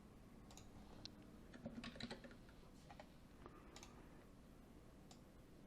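Faint, scattered taps on a computer keyboard, a handful of single clicks with a quick little cluster near the middle, over near-silent room tone.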